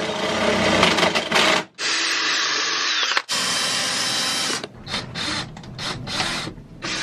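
Power drill boring holes through a hard plastic case, running steadily in three runs broken by sudden cuts, then in shorter stop-start bursts near the end.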